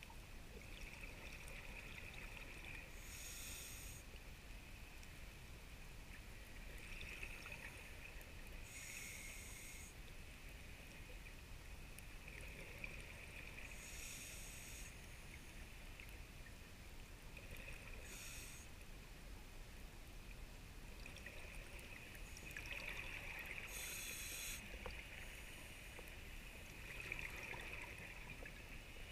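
Scuba diver breathing through a regulator underwater: a hissing inhale followed by a short burst of exhaled bubbles, repeating about every five seconds.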